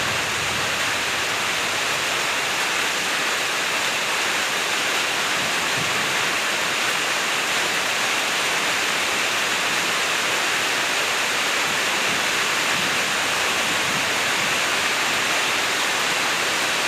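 Steady rainfall, an even unbroken hiss with no letup.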